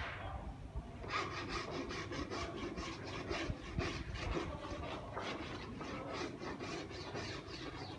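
Rapid, rhythmic rasping strokes, about four or five a second, starting about a second in.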